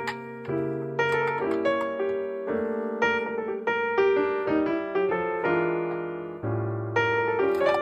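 Background piano music: a melody and chords played over held bass notes, each note struck and fading away.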